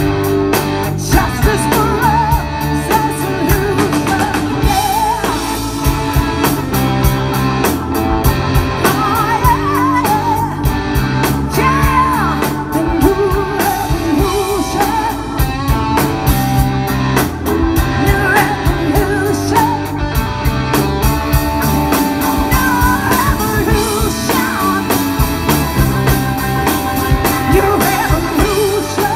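Live blues-rock band playing through a PA. A drum kit, electric guitars, bass and keyboards carry on, with a woman singing over them.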